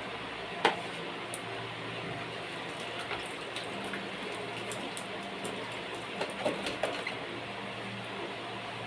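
Light knocks and clicks of refrigerator door side pockets being handled and wiped down, one sharp knock under a second in and a small cluster of them about six seconds in, over a steady background hum and hiss.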